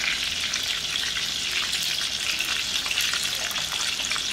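Pork belly cubes sizzling in their own rendered fat in a stainless electric skillet: a steady hiss with fine, rapid crackles as the fat renders out.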